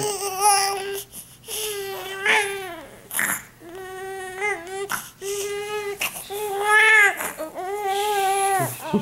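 A newborn baby crying in a string of about six short, wavering wails with brief breaths between them.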